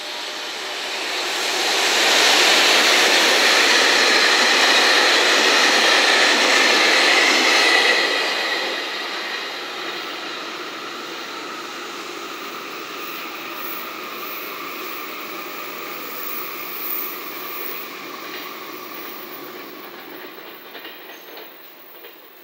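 JR Freight EF210 electric locomotive and its short container freight train passing close by on the rails, loudest for several seconds as it goes by, then fading steadily as it draws away.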